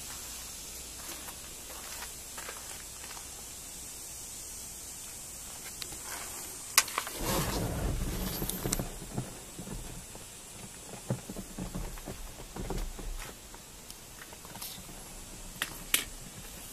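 Handling noise as the camera is carried into a pickup's cab: rustling and knocking over a steady hiss, with a sharp click about seven seconds in, a couple of seconds of louder rumbling and rubbing right after, and two more sharp clicks near the end.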